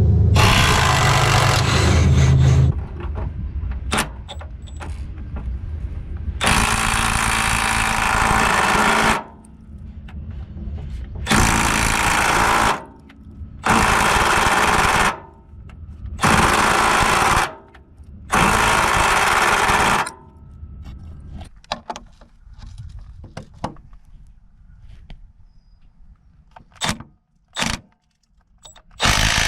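Milwaukee M12 Fuel right angle impact wrench hammering in about six bursts of one to three seconds each, with quieter running between them. Scattered clicks and clanks follow near the end.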